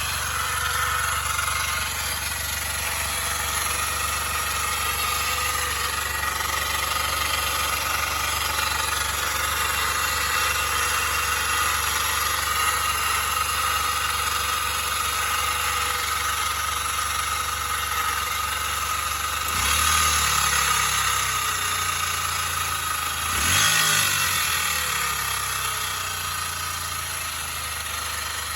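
Suzuki Jimny JB23's 660 cc three-cylinder engine idling steadily with a steady high whine over it, revved briefly twice, about two-thirds of the way through and again a few seconds later; this is the abnormal noise (異音) the owner is recording.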